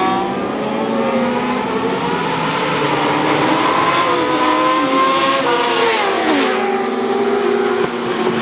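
Racing motorcycle engines at high revs as a small group of bikes comes down the track, several engine notes overlapping. About six seconds in the loudest note falls steeply in pitch.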